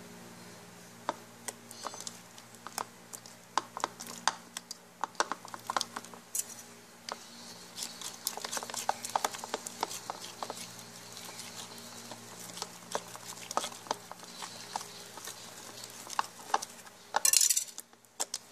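Wet slime mixture being stirred and worked in a blue plastic bowl: irregular sticky clicks and taps throughout, with a brief loud rustling burst near the end. A low steady hum runs underneath.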